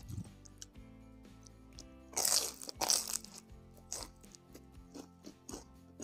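Crunchy bites into a crispy batter-fried gorengan snack: two loud crackly crunches about two seconds in, then smaller crunches of chewing. Background music plays steadily underneath.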